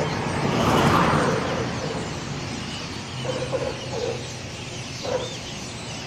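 A large roosting flock of birds chattering and calling together, many overlapping chirps, with traffic noise and a vehicle passing about a second in.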